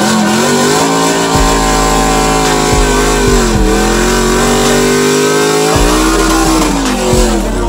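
Chevrolet Silverado pickup engine held at high revs during a burnout. The pitch sags twice, about three and a half seconds in and again near the end, and climbs back each time.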